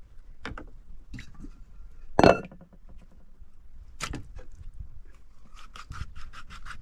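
Clinks and knocks of cooking utensils and pots, with one loud knock about two seconds in and a quick run of light clicks near the end.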